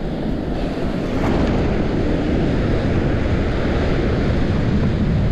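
Steady wind buffeting the microphone, over the wash of surf.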